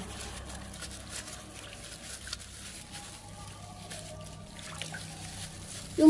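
Quiet splashing and sloshing of water in a steel basin as a slab of cured pork is scrubbed with a scouring sponge, with a faint steady low hum underneath.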